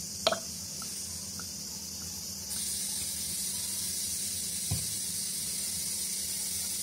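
Steady hiss of a gas stove burner heating a kadai of cooking oil, growing louder and brighter about two and a half seconds in, with a light click near the start.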